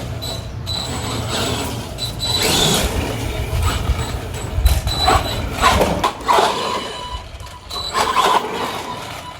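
ARRMA Granite 3S brushless RC monster truck being driven, its electric motor and drivetrain whirring as it speeds up and slows, over a steady low rumble with scattered knocks.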